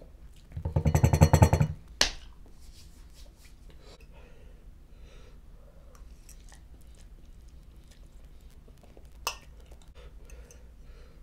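A loud burp lasting about a second, made of rapid rattling pulses, followed a moment later by a sharp click. Faint small eating noises follow, with another click near the end.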